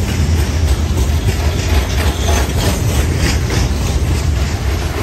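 Freight train's hopper cars and boxcars rolling past close by: a steady low rumble of steel wheels on the rails with repeated clicks and clanks as the trucks pass over the track.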